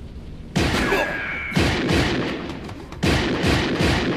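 Automatic rifle fire from a film soundtrack: rapid strings of shots in three bursts, starting about half a second in, again at about a second and a half, and again at about three seconds.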